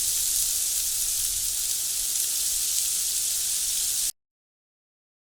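A steady, even high-pitched hiss that cuts off abruptly about four seconds in.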